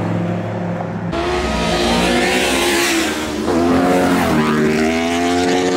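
A car accelerating hard at full throttle: the engine note jumps about a second in and climbs, drops at a gear change about three and a half seconds in, then climbs again through the next gear.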